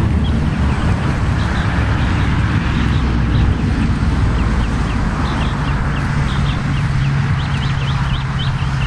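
Steady low rumble of road traffic, with a steady hum joining about five seconds in. Quick, high bird chirps come more and more often toward the end.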